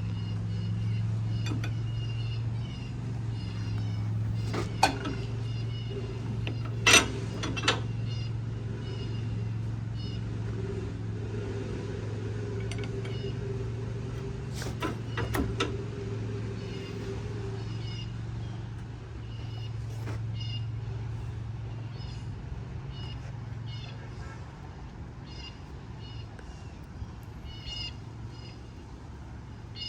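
A steady low motor hum throughout, with a few sharp metallic knocks as the greased hydraulic piston and cylinder parts are handled during reassembly; the loudest knock comes about seven seconds in. Short high chirps sound on and off.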